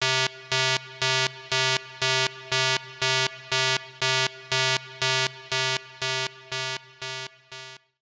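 Countdown-timer sound effect: a buzzy electronic beep repeated about twice a second, some sixteen times, the last few growing fainter before it stops.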